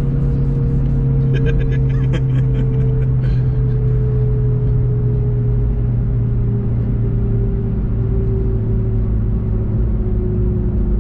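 Volkswagen Golf GTI TCR's turbocharged 2.0-litre four-cylinder engine droning as heard inside the cabin, its pitch sinking slowly as the car slows off the throttle. A constant road and tyre rumble runs underneath.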